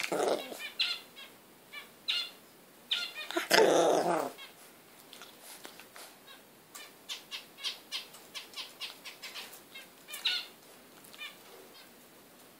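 English bulldog puppy grunting and snuffling in short quick breaths as it wrestles on its back, with a louder, longer grunt about three to four seconds in.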